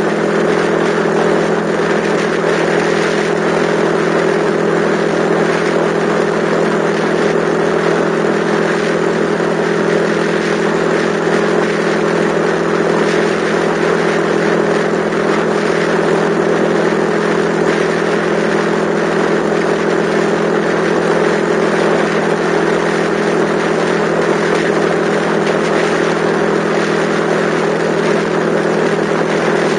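Yamaha XTZ125's single-cylinder four-stroke engine running at a steady cruising speed, its pitch unchanging, under a steady rush of wind and road noise.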